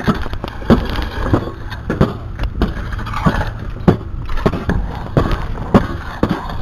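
Steel garden rake scraping and dragging through stony, gravelly dirt in repeated strokes about every half second.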